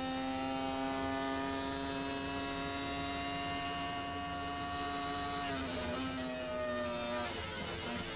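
Benetton B198's Judd V10 racing engine running at steady revs. About five and a half seconds in, the pitch dips and wavers, then steps lower near the end as the revs come down.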